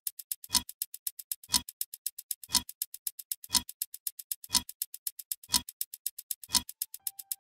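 Countdown clock ticking effect: rapid light ticks with a heavier, deeper tick once a second.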